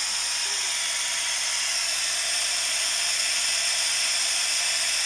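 BMW M10 four-cylinder engine running steadily at idle on its first start after a cylinder-head rebuild, a continuous mechanical whir.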